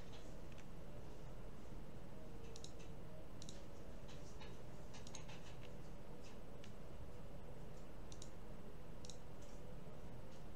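Computer mouse clicking at irregular intervals, a dozen or so short, sharp clicks, over a steady low background hum.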